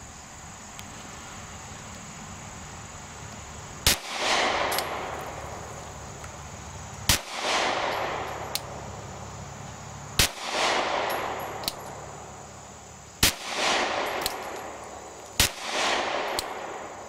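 Glock 43 9mm subcompact pistol fired five single shots at a slow, steady pace, about one every three seconds, each sharp crack trailed by an echo that dies away over a second or two.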